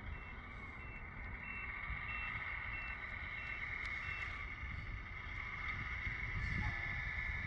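Reverse-warning beeper on a Tamiya Grand Hauler RC semi truck beeping steadily, about eight evenly spaced high beeps, as the truck and dump trailer back up. The beeping stops about four seconds in, leaving a steady high hum.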